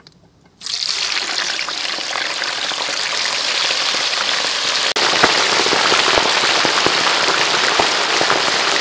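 Raw chicken pieces going into a wok of hot oil: about half a second in the oil bursts into a loud sizzle, then keeps up a dense, steady crackling as the chicken deep-fries.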